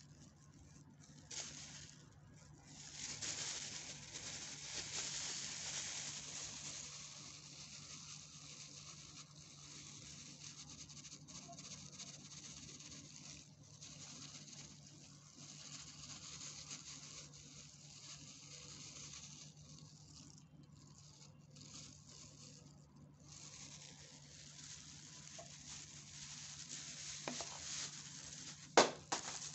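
Plastic bag and plastic-gloved hands crinkling and rustling in bouts as powder is shaken out into a plastic measuring scoop, with one sharp click near the end.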